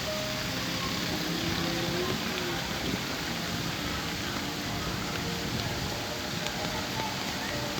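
Steady hiss of heavy rain mixed with street traffic, with faint music underneath.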